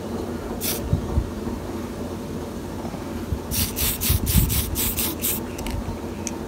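Aerosol spray can of matte black paint hissing in short light bursts: one burst about half a second in, then a quick run of about seven bursts near the middle. Low thumps and a steady low rumble run underneath.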